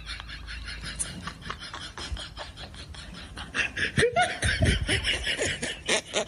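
Human laughter, a quick run of laughs that gets louder about halfway through.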